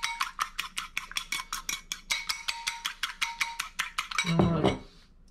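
Egg yolk mixture for hollandaise being beaten fast in a bowl, the utensil clinking against the bowl about six times a second. The beating stops about four seconds in with a brief louder clatter.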